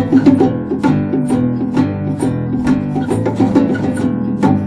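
Live acoustic band playing: strummed acoustic guitar, bass guitar and keyboard over a steady beat from hand percussion.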